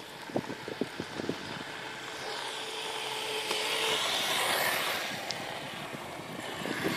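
A few light knocks in the first second or so, then a passing vehicle's road noise swells to a peak and fades over about four seconds.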